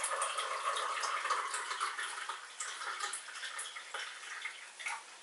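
Tea poured from a jug into a mug: a steady stream of liquid splashing into the cup, thinning and tailing off near the end.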